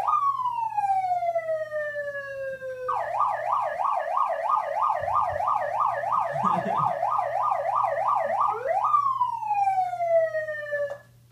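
Electronic siren played through a small PA speaker with socks stuffed in it to soften it. It sounds a slow falling wail, then a rapid yelp for several seconds, then rises again into another falling wail that cuts off suddenly near the end.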